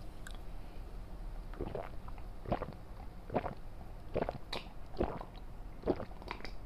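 A person gulping cider from a glass mug, close to the microphone: a series of swallows about once a second, starting about a second and a half in.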